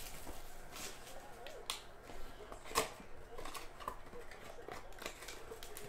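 Plastic shrink wrap crinkling as it is torn off a small trading card box, then the cardboard box flaps being opened, with scattered light clicks and crackles.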